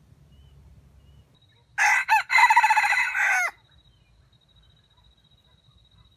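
A junglefowl rooster crows once, about a second and a half long: two short clipped notes, then a held note that falls away at the end.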